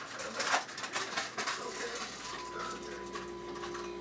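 Light clicks and knocks of kitchenware being handled at the counter, then a steady electrical hum with a faint whine starts about two seconds in and carries on.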